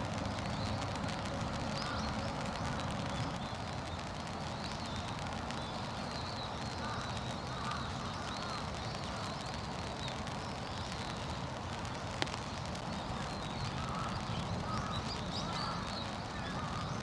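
Steady low outdoor background rumble with faint, scattered distant bird calls, and a single sharp click about twelve seconds in.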